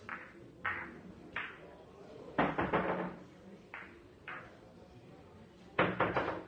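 Billiard balls clicking against each other: single sharp clacks every half second or so, and two louder flurries of rapid knocks, one about halfway through and one near the end.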